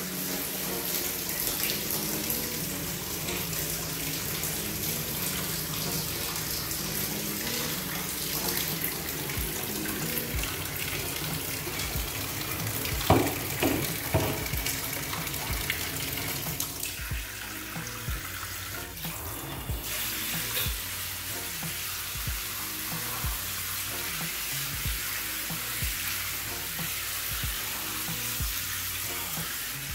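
Water from a freestanding tub filler's hand shower spraying into the tub and running down the tub bottom, a steady hiss. The flow is low because the main water valve is not fully open. A couple of knocks come about halfway through, and background music with a steady beat plays under the water in the second half.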